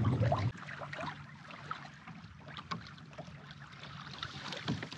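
Water lapping against the hull of a small sailing dinghy under way, a faint steady wash with scattered small slaps. A low wind rumble on the microphone stops abruptly about half a second in.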